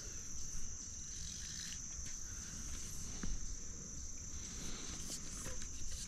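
Steady high-pitched chorus of insects, crickets or similar, shrilling without a break, with a few faint clicks over it.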